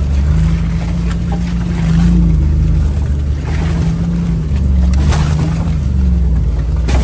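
Off-road Jeep's engine running steadily at low revs, heard from inside the roll cage, its pitch rising and falling a little as it crawls over a rutted dirt trail. A few brief knocks and rattles from the vehicle over the ruts, one about a second in and another about five seconds in.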